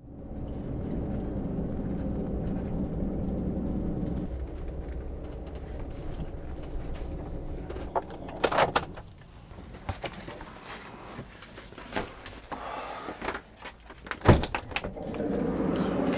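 Van engine running, heard from inside the cab while driving, fading during the first half. Then a run of sharp knocks and clicks of the van's doors being worked, the loudest about two-thirds of the way through.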